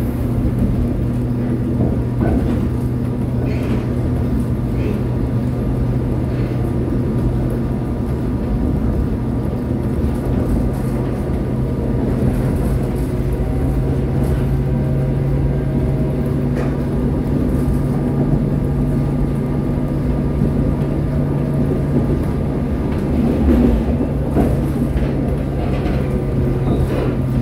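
Inside a Korail Line 1 resistor-controlled electric train car while it is running: a steady low hum from the train with rumbling wheel-and-rail noise and a few faint clicks from the track.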